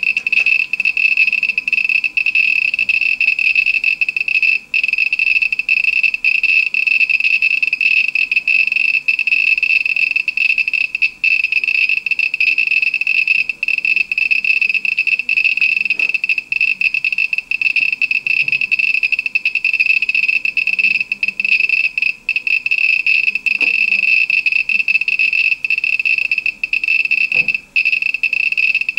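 Homemade Geiger counter (SBM-20 tube) beeping for each detected count. At this high count rate the beeps run together into a dense, high-pitched, nearly continuous chirring. It is the sign of a strongly radioactive sample against the tube, at hundreds to over a thousand counts per minute.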